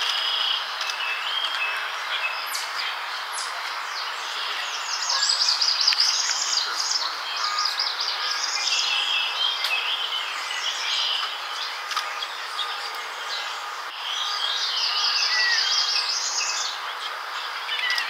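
Several songbirds singing and chirping over a steady background hiss, with two longer songs of fast high notes, one about five seconds in and one about fifteen seconds in.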